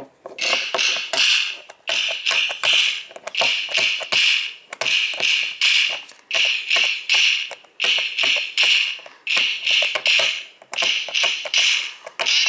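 Music playing from an iPod nano, thin and high-pitched, with a pulsing beat that repeats about once a second.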